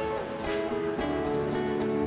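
Background music with held notes that change about every half second.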